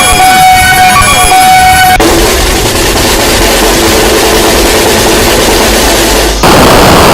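Loud background music that changes abruptly about two seconds in, from steady held tones with falling sweeps to a dense, noisy texture, and changes again near the end.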